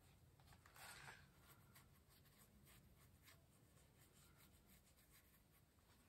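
Near silence, with faint strokes of a paintbrush on paper, a slightly louder brushing about a second in.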